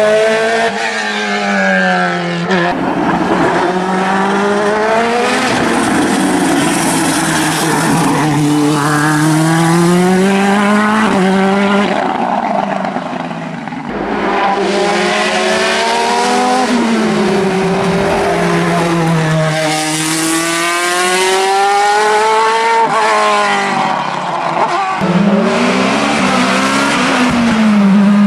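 Sport-prototype race car engines at full effort on a hill climb. The pitch climbs steeply through each gear and drops back at the shifts and when braking for bends, over and over, as one car after another goes up the course.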